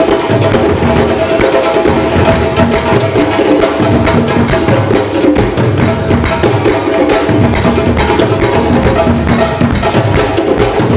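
Percussion music, drums playing a busy, steady rhythm.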